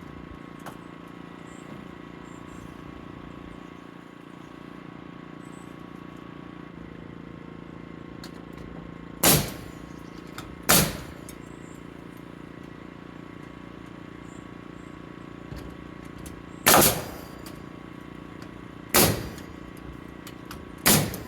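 Nail gun firing five single nails into a wooden rafter, sharp separate shots spaced irregularly about 1.5 to 6 seconds apart, over a steady hum.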